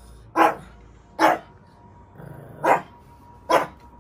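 Shih tzu barking angrily, four sharp barks at uneven spacing, as it quarrels with another dog.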